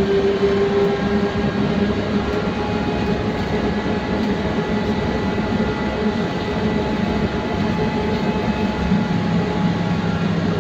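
Trolza-5275.07 Optima trolleybus heard from inside its passenger cabin: a steady electric hum with several held tones over a continuous rumble. The lowest tone is strongest right at the start and again near the end.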